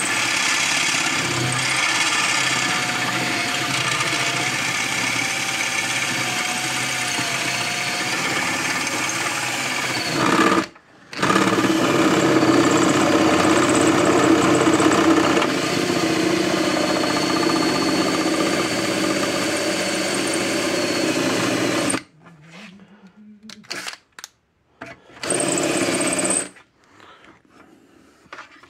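Power drill running under load, boring a small hole through the sheet-metal housing of a fence charger for a self-tapping screw. It runs for about ten seconds, stops briefly, runs for about eleven seconds more, stops, and gives one short burst near the end.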